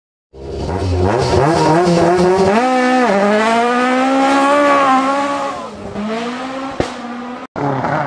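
A racing car engine accelerating hard. Its pitch climbs, drops at a gear change about three seconds in, climbs again, then falls away and fades. The sound cuts out briefly near the end before another engine sound begins.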